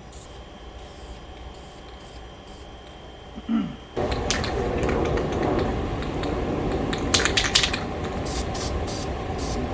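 Aerosol spray paint can spraying with a dense hiss, starting suddenly about four seconds in after a quieter stretch, with a few sharper spits near the end.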